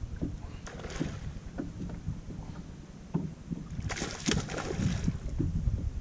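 Wind rumbling steadily on the microphone while water laps and splashes against a boat's hull. The loudest splash comes about four seconds in.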